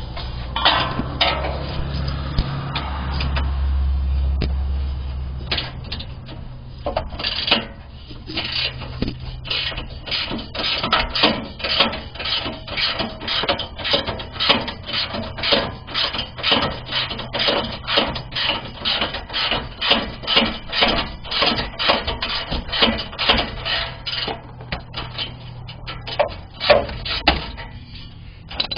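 Hand socket ratchet worked back and forth to back out a skid plate bolt, a steady run of clicking strokes at about two to three a second from about seven seconds in until near the end. Before that, a low rumble and scraping.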